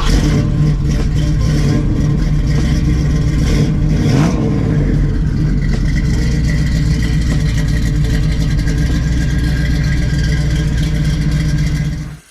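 Car engine running loud and steady, with a short rev about four seconds in, cutting off suddenly near the end.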